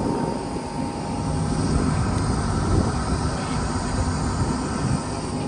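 Passenger boat's engine running with a steady, even drone.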